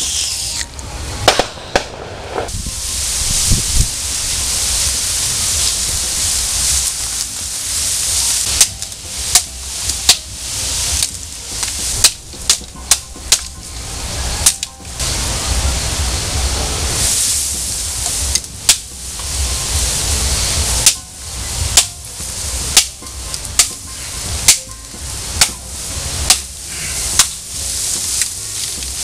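Albatroz LD-101 stainless-steel knife chopping into bamboo: a quick, irregular series of sharp whacks, more frequent from about a third of the way in, with a steady rustle of bamboo leaves between the strokes.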